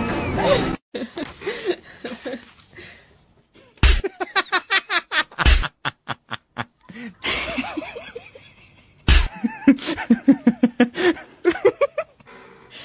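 A person laughing hard in two bouts of quick, repeated bursts, the first starting about four seconds in and the second about nine seconds in.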